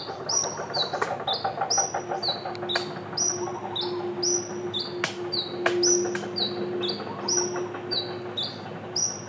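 A bird calling over and over, a short high falling note about two to three times a second, with a few sharp clicks in between and a faint steady hum behind.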